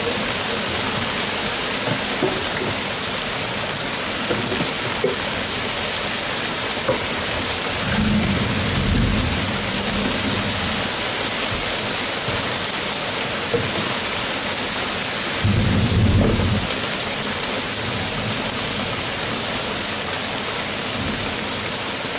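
Heavy rain pouring down on a sailboat as a steady hiss, with two low rolls of thunder, one about 8 seconds in and a louder one about 16 seconds in.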